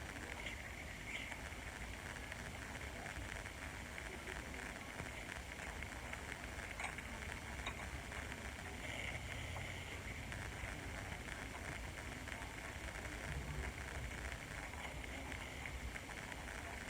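Steady low background hiss and hum, with a few faint, light clicks of small metal parts of a powder-measure linkage being handled and fitted.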